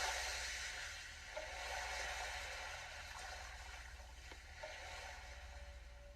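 Soft ambient electronic music generated from the listener's heart readings by a Sound of Soul biofeedback device: an airy, wave-like wash that swells and fades, with short mid-pitched tones and one tone held steady near the end, over a low steady hum.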